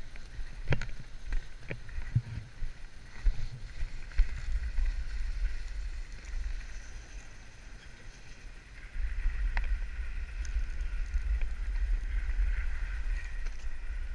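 A snowboard sliding and scraping over packed snow, with low wind rumble on the microphone that grows louder about nine seconds in as the board speeds up. A few sharp knocks come in the first seconds.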